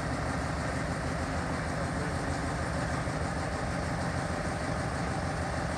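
Small Ruston diesel shunting locomotive's engine idling steadily, a low even rumble.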